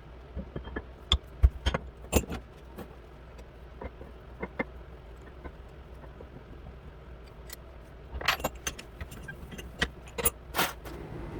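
Metal parts and tools clinking and knocking as they are handled, in two bursts of sharp clicks, the first about a second in and the second from about eight seconds in, over a low steady hum.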